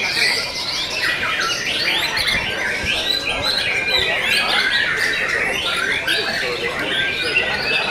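Several white-rumped shamas (murai batu) singing at once: a dense, unbroken tangle of overlapping whistles, trills and chattering phrases.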